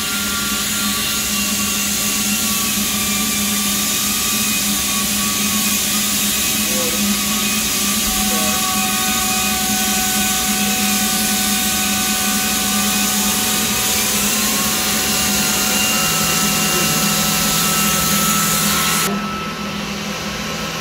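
Steady whir and hiss of running shop machinery, with a few faint whining tones that shift slightly in pitch. Near the end the high hiss cuts off abruptly and a lower hum carries on.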